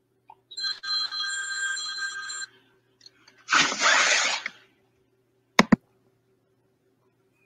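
An electronic ringing tone, several steady pitches sounding together for about two seconds. It is followed by a noisy rush about a second long and two sharp clicks close together.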